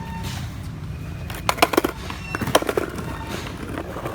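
Skateboards clacking on concrete: a cluster of sharp clacks and knocks between about one and three seconds in, over background music with a steady low bass.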